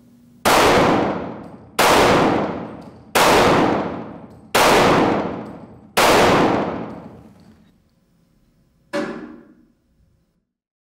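Handgun shots on an indoor firing range: five loud shots evenly spaced about a second and a half apart, each ringing out in a long echo, then a fainter sixth bang about nine seconds in.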